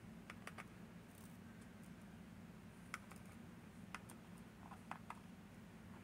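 A few faint, light clicks, scattered irregularly, as the small magnetic elements taken from a Miwa VM88 cam lock are handled and set down in a parts tray.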